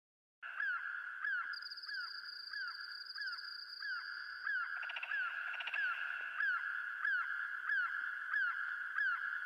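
Electronic synthesizer sounds: a steady high drone with short falling chirps repeating evenly, nearly twice a second, starting abruptly about half a second in. A high buzzing tone joins for a few seconds early on, and a denser crackle comes around the middle.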